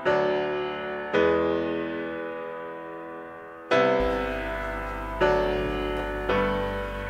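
Intro music: sustained keyboard chords, struck about every one to two and a half seconds and each left to ring and fade.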